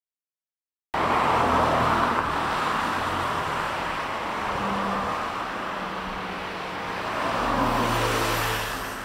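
Steady road traffic noise that cuts in suddenly about a second in, with a low rumble swelling near the end as a vehicle passes.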